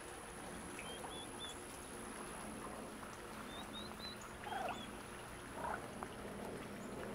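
Wild turkey poults peeping faintly, short high notes in little runs of two or three, with a couple of softer, lower calls from the flock.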